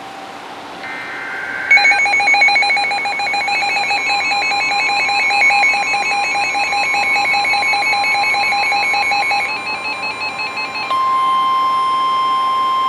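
NOAA Weather Radio alert: short buzzy SAME data bursts, then a shrill electronic alarm beeping rapidly in two tones over the steady 1050 Hz warning alarm tone. The beeping stops near 9.5 s and the alarm tone goes on alone, louder, for the last two seconds.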